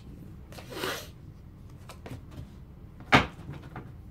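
A deck of oracle cards being shuffled by hand: a short rustle of cards sliding against each other about a second in, small clicks, then a single sharp knock a little after three seconds.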